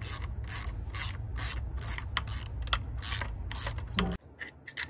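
Socket ratchet wrench clicking as its handle is swung back and forth, undoing a bolt on the outboard's powerhead, in short bursts about twice a second. It stops abruptly about four seconds in, with a few fainter clicks after.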